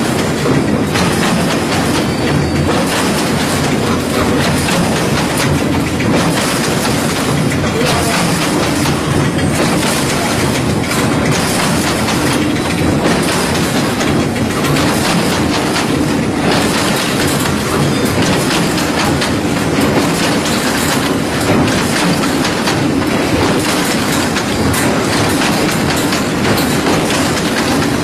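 Hexagonal wire mesh (gabion basket) weaving machine running, a loud, steady mechanical clatter of many small knocks as its spools twist the wires into mesh.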